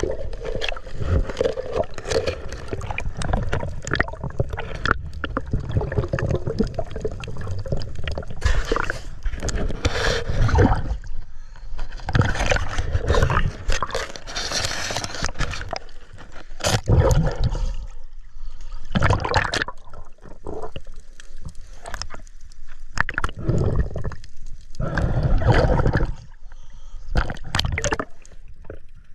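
Water gurgling and bubbling around a camera held underwater while diving, swelling and fading in surges every few seconds.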